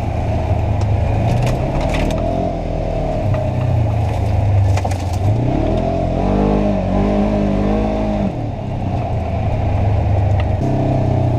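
A 900 cc side-by-side UTV engine running hard off-road, its revs rising and falling with the throttle. A few sharp knocks and rattles come through as the vehicle goes over rough ground.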